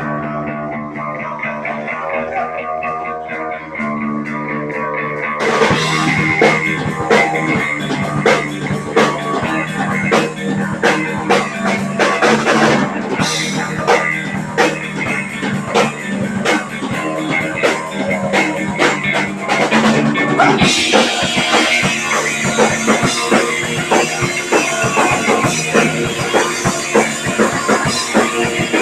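Live punk rock band playing: electric guitar chords ring out alone, then drums and bass come in about five seconds in and the full band plays with a steady driving beat, growing fuller about twenty seconds in.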